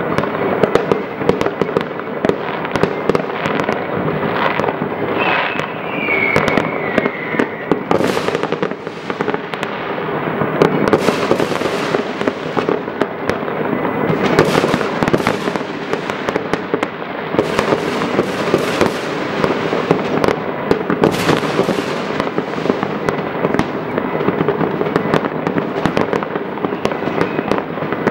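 Many fireworks and firecrackers going off at once in an unbroken crackle of bangs, with louder bursts every few seconds and a short falling whistle about five seconds in.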